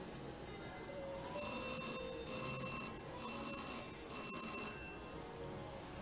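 Reel slot machine's electronic win bell ringing four times in quick succession, about a second apart, as a spin pays out.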